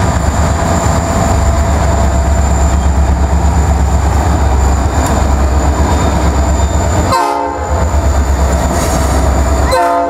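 Two EMD SD40-2 diesel locomotives passing close by, the heavy low rumble of their two-stroke engines throbbing steadily. Two short horn toots sound, one about seven seconds in and one near the end.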